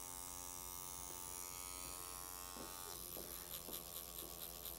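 Electric microneedling pen running with a faint, steady buzz; its sound changes about three seconds in.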